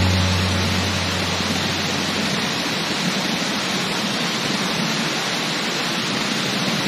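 Steady, even rushing of waterfall water. The last held low note of a song fades out over the first second or so.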